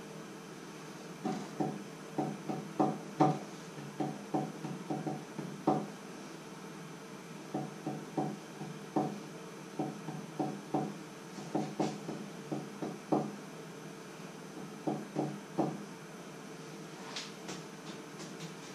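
Fingers drumming on a wooden cutting board and countertop: runs of quick, dull knocks, several a second, that stop about three-quarters through. A few faint clicks follow near the end, over a faint steady hum.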